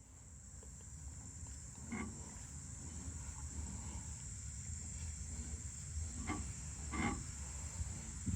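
A rattle sounding four times, in short sharp bursts each with a brief ringing tone: once about two seconds in, then three in the last few seconds. Underneath runs a steady low rumble and a constant high whine.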